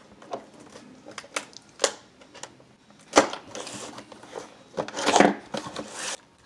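Cardboard box being opened by hand: a string of light taps and clicks, with louder scraping rustles of cardboard about three and five seconds in.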